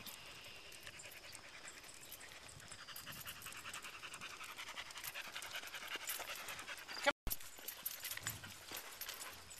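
A dog panting in a quick, even rhythm, growing louder through the middle of the stretch. A sharp click and a split-second dropout about seven seconds in.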